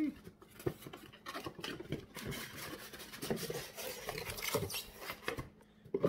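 A cardboard box and its inner packaging being handled and opened: rubbing and sliding cardboard with scattered small knocks and taps.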